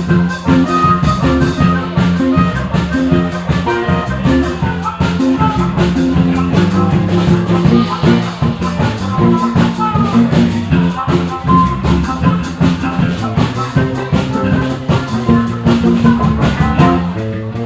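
Live band playing an instrumental break, with a drum kit keeping a steady beat under guitar.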